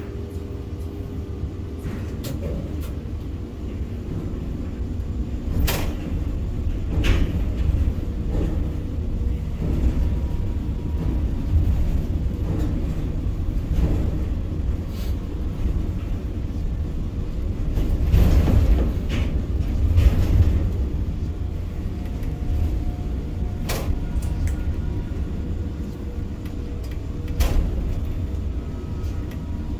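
Ship-to-shore container crane running, heard from inside the operator's cab: a steady low rumble of the drive machinery as the empty spreader travels from the ship back over the quay. Occasional clunks and knocks break through, the loudest about eighteen to twenty seconds in.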